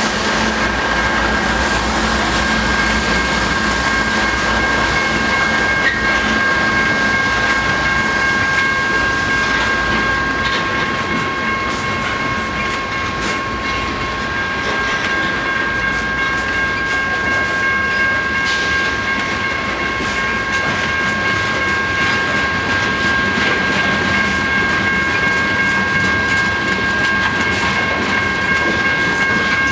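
Freight train rolling slowly past, with steady rumble and wheel clatter of the cars over the rail joints. Three steady high-pitched ringing tones sound throughout.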